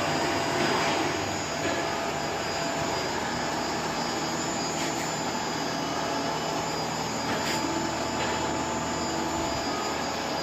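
An electric motor-driven workshop machine running steadily: a continuous whine and hum, with a few faint clicks.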